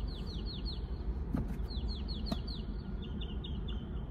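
Rapid runs of high, bird-like chirps, each note sliding down, about six a second, turning to shorter, steadier peeps near the end. Under them runs the steady low rumble of a car on the move.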